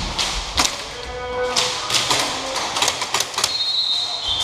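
A string of irregular sharp cracks and taps from airsoft fire, most of them in the middle of the stretch. About three and a half seconds in, a steady high-pitched tone starts and holds.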